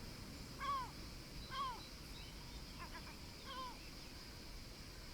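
A bird giving short, arched, honking calls about once a second, four times, the later ones fainter, over a steady high-pitched hiss.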